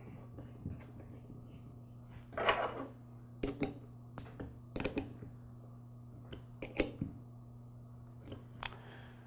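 Scattered light metallic clicks and taps as a lawn mower carburetor's float bowl is seated and its bowl screw is turned down by hand and then tightened with a small wrench.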